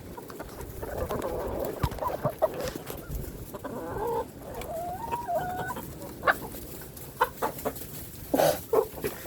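Domestic chickens clucking, with several short pitched calls, and a few sharp knocks scattered through, most of them in the second half.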